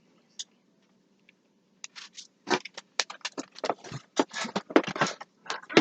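Plastic slime-kit packaging being handled: a few faint clicks, then from about two seconds in a dense run of crackling, rattling plastic noises.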